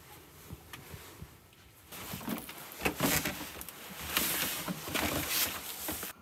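Rustling and light knocks of someone moving about in a padded jacket, with a few faint clicks at first and louder from about two seconds in; it cuts off suddenly near the end.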